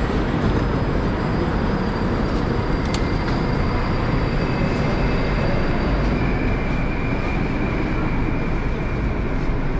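Steady, loud noise of a metro train standing at a station platform with its doors open, with a single sharp click about three seconds in and a faint high whine that sets in about six seconds in.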